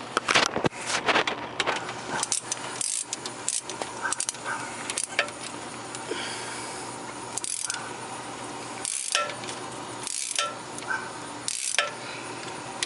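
Metal clinks and clatter of hand tools as a ratchet with a 13 mm socket works a bolt, with short rasping ratchet strokes about every second and a half in the second half.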